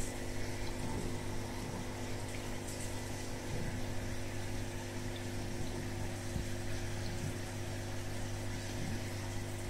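Aquarium pump running with a steady low hum over an even hiss of water.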